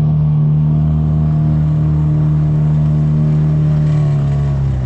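Small boat's outboard motor running steadily underway, its pitch dropping slightly near the end.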